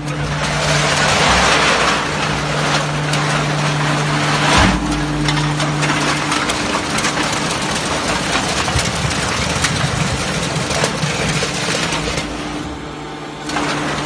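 Enerpat automatic aluminium can (UBC) baler running: a steady hum from its hydraulic pump motor over a dense clatter of small clicks and rattles, with one sharp knock about four and a half seconds in.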